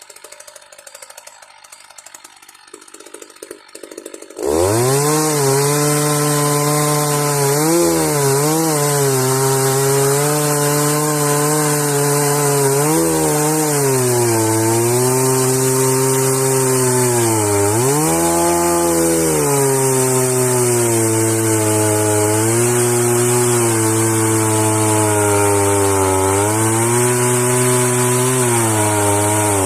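Chainsaw running at full throttle in a home-made Alaskan chainsaw mill, ripping a log into boards. It comes in loud and suddenly about four seconds in and holds a steady high pitch that sags briefly a few times.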